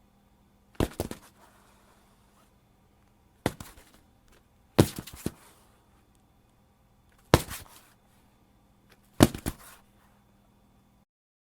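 Five body-fall thuds a second or two apart: a heavy sack dropped to the ground, each hit followed by a quick settling thump or two.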